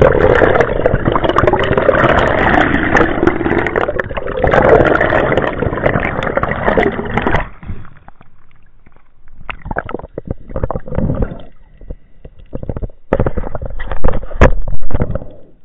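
Water gurgling and rushing, heard through an underwater camera housing: loud and unbroken for about seven seconds, then breaking into short sloshes and splashes as the camera moves through the surface.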